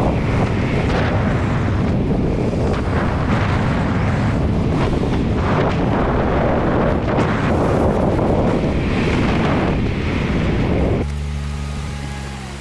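Wind buffeting the microphone over the road noise of a moving car, a loud even rushing. About eleven seconds in the rushing drops away sharply, leaving a steady low hum that fades.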